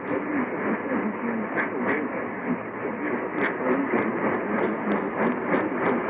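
Radio receiver pulling in a weak, distant station: a steady hiss of static in a narrow, muffled band, with scattered crackles.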